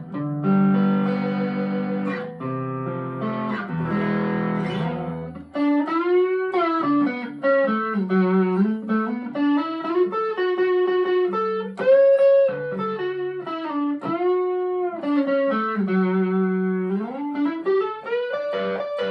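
Harley Benton ST-25th Strat-style electric guitar played through an overdrive pedal into a small Marshall MG15 amp. It opens with strummed chords, then about five seconds in switches to a single-note lead line with string bends and vibrato; the tone is "bitey gnarly".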